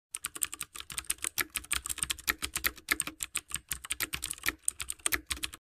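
Computer keyboard typing sound effect: a fast, uneven run of keystrokes, about ten a second, that cuts off suddenly near the end.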